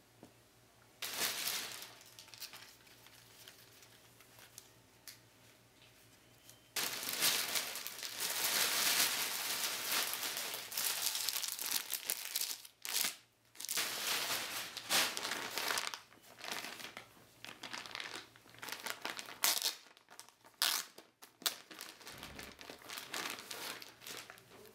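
Plastic shopping bag and clear plastic packaging crinkling and rustling as they are handled and opened by hand. There is a short burst about a second in, then louder, near-continuous rustling from about seven seconds in, broken by brief pauses.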